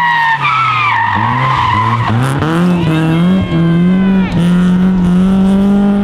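BMW E30 rally car's tyres squealing through a corner for the first two seconds. Then the engine accelerates hard, its pitch climbing with two short breaks at gear changes before holding at high revs.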